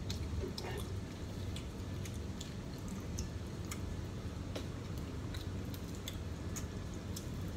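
Close-miked chewing with wet mouth clicks and smacks from someone eating barbecue wings, scattered throughout. A steady low hum runs underneath, which the eater guesses is pressure washing in the hallway.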